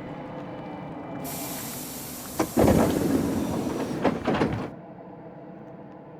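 Pneumatic sliding doors of a stopped commuter train working: a sudden loud hiss of released air, with the door panels thudding against their stops twice, then the hiss cuts off abruptly. Under it the train's steady low rumble continues.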